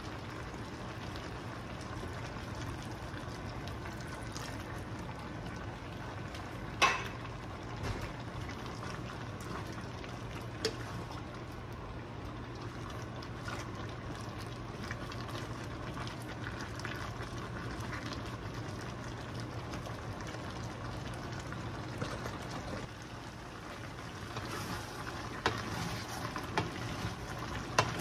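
Diced meat sizzling in a hot skillet as it is stirred with a wooden spatula, with sharp knocks of the spatula against the pan, the loudest about seven seconds in and several more near the end. A faint steady low hum runs underneath.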